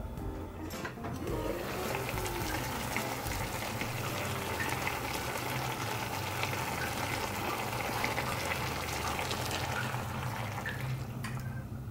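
A pan of mackerel and bitter melon simmering, giving an even bubbling hiss with scattered small pops. Near the end coconut milk is poured into the pan.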